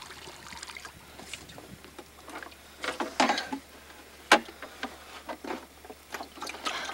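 Scattered knocks and rustling, with a cluster of noises about three seconds in and one sharp knock about four seconds in.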